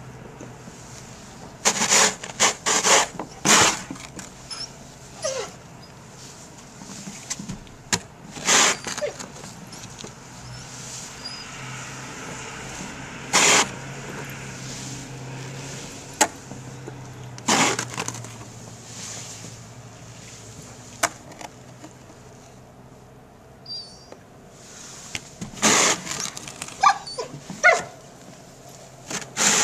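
Snow shovel scraping and chopping snow on wooden deck steps, in a series of short bursts: a cluster early on, single strokes every few seconds, and another cluster near the end.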